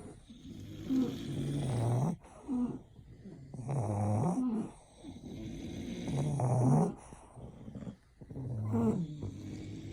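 English bulldog snoring in its sleep: about four snores, one roughly every two and a half seconds, each a second or so long, with quieter breathing in between.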